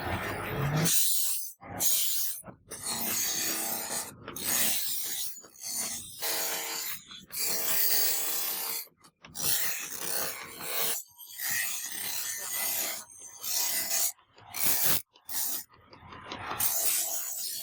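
A hand file or rasp worked back and forth on the knife: about a dozen scraping strokes with short breaks between them.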